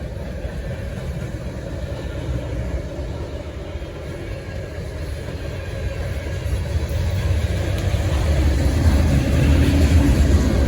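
Diesel locomotives of an approaching train, a low rumble that grows steadily louder, rising most over the last few seconds.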